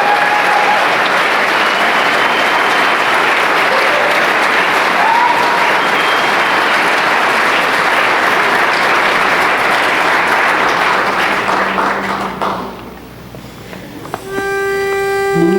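Audience applauding and cheering, dying away about twelve seconds in. After a short lull a pitch pipe sounds one steady note, and near the end the barbershop quartet starts humming the pitch it gave.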